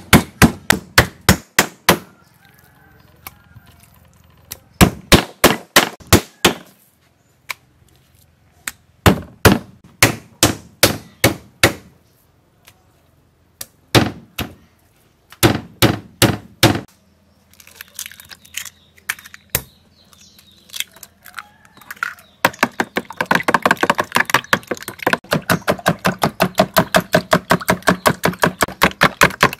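Meat cleaver striking beef on a wooden tree-trunk chopping block, pounding the slices flat. The blows come several a second in short runs with pauses between them, with the longest run in the last seven seconds.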